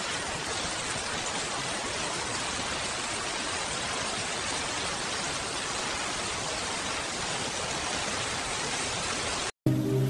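Steady rain, an even hiss with no distinct drops or thunder. It cuts off abruptly near the end, and soft music starts.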